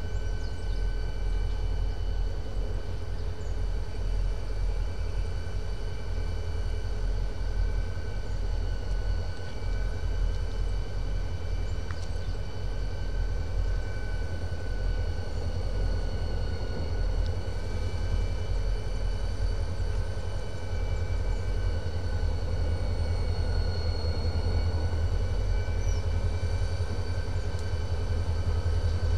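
Diesel-electric locomotive moving slowly on the track, its engine giving a steady low rumble under a constant high-pitched whine. It grows slightly louder toward the end.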